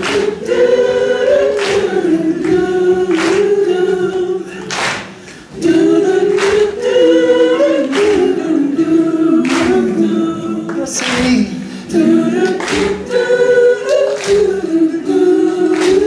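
Many voices singing a held refrain together with little or no instrumental backing, over hand claps on a steady beat, a little faster than one clap a second.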